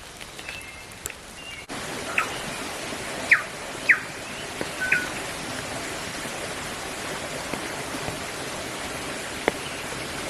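Steady hiss of water on a rain-soaked forest track, cutting in abruptly under two seconds in, with a few short falling whistled bird calls between about two and five seconds in.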